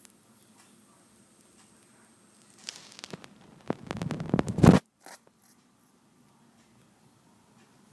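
A sleeping woman snoring: one rough, rattling snore that builds over about two seconds and cuts off abruptly, over a faint room hum.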